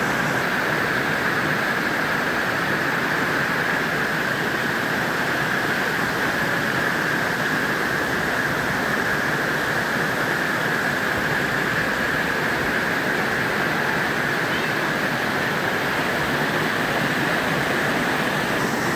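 Steady rushing roar of a tall forest waterfall and the water running below it, with a steady high-pitched whine running through it.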